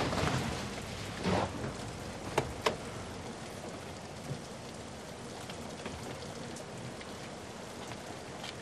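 Steady rain falling, an even hiss, with a few short sharp knocks about one and a half to three seconds in.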